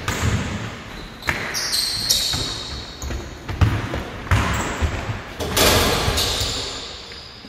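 Basketballs bouncing on a hardwood gym floor in irregular thuds as players dribble, with sneakers squeaking on the floor a couple of times, echoing in the large hall.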